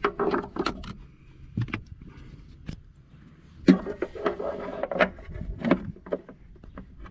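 A plastic piece is handled and pushed back into place beside a car battery, with a string of sharp clicks and knocks, then about two seconds of scraping and rattling past the middle.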